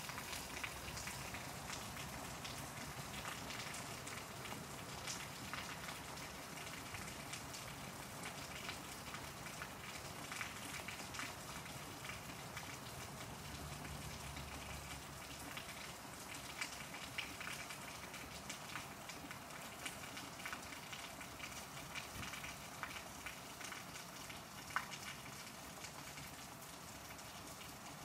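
Steady rain, with many small drops ticking on surfaces during a thunderstorm. A faint low rumble comes about halfway through, and one sharper drop-tick sounds near the end.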